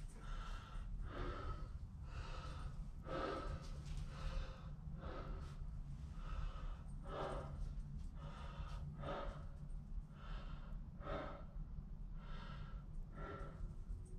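A person breathing audibly close to the microphone, about one breath sound a second, over a low steady rumble.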